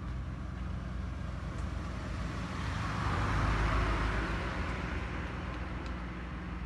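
A road vehicle passing by: a broad rumble and hiss that swells to its loudest about halfway through, then fades, over steady low traffic rumble.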